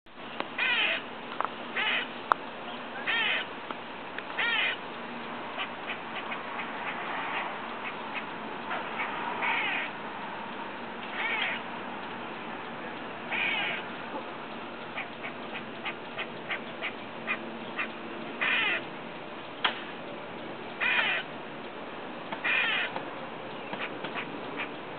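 Squirrel calling over and over with short, harsh, nasal calls, about ten of them at irregular gaps. A run of quick short ticks comes in the middle.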